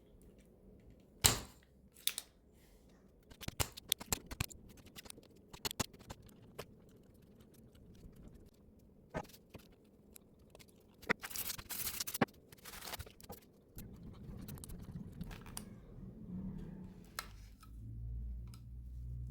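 Scattered clicks, taps and scrapes of small tools and plastic parts being handled on a workbench, with a sharper click about a second in and a brief hissing scrape around the middle.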